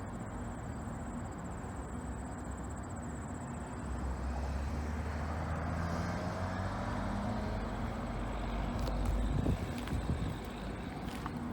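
A large diesel engine, likely a demolition machine's, running with a low steady hum that grows louder about four seconds in. A few knocks come near the end.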